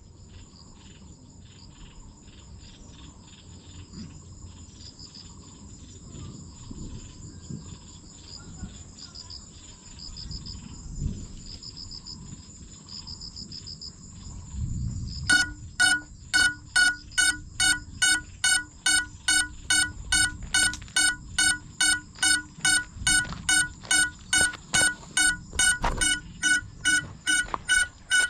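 Faint insect buzz in the grass, then from about halfway through, the crashed FPV drone's locator beeper sounds loud, evenly spaced beeps, about two to three a second.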